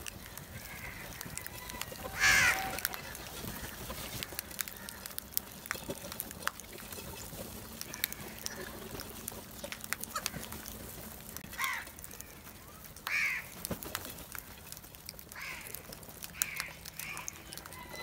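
House crows cawing now and then: one loud harsh caw about two seconds in, then a few more in the second half. Many small taps and clicks run between the calls as the flock pecks at grain on concrete and clay bowls.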